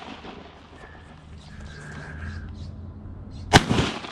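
A single shotgun shot about three and a half seconds in: one sharp, loud report with a short echo trailing after it.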